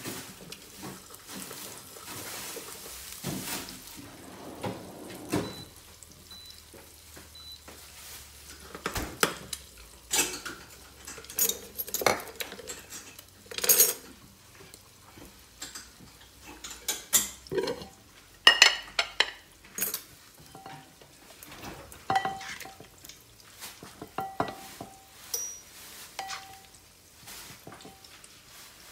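Dishes and cooking utensils clinking and knocking against one another in an irregular series of sharp strikes, some ringing briefly, as stir-fried chicken and vegetables are ladled from a pot onto a china plate.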